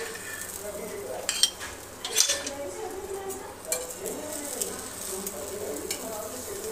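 Ghee-coated aloo paratha sizzling on a flat tawa griddle, with a few sharp clinks of a metal spoon and spatula against the pan, the loudest about two seconds in.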